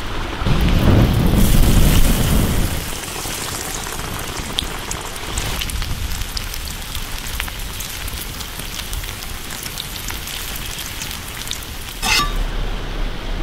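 Breaded chicken deep-frying in hot oil in a skillet: a steady sizzle like rain, with small crackles. A louder low rumbling noise comes in the first couple of seconds, and there is a sharp knock about twelve seconds in.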